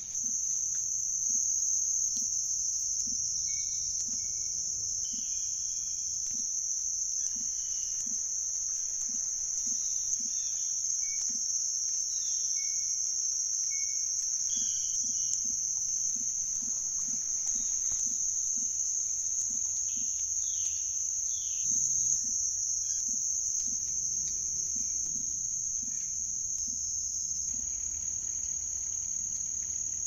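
A steady, high-pitched insect chorus that does not let up, with a few faint bird chirps scattered through.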